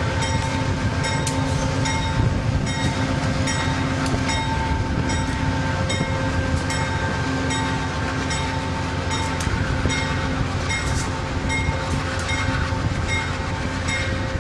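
Stainless-steel passenger railcars rolling past at close range, with a steady rumble and hum and a repeated clicking of wheels over rail joints, about every half-second.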